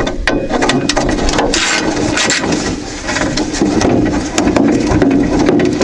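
Repeated clicks and scrapes of a hand wrench undoing a 10 mm bolt on a plastic Lada Niva front bumper, over a steady low hum.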